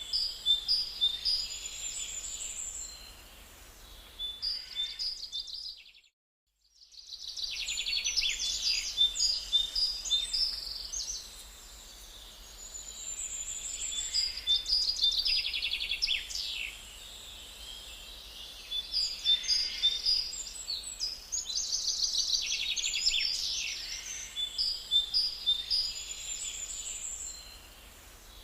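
Several songbirds singing in a forest, a dense mix of quick trills and chirps, with a brief cut to silence about six seconds in.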